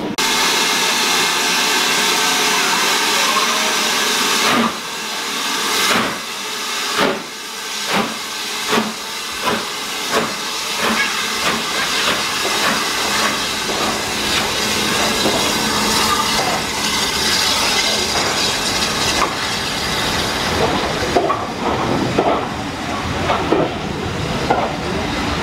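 Steam locomotive pulling a train out of a station: a loud hiss of steam, then a series of beats that come quicker and quicker as the train gathers speed, with the coaches rolling past.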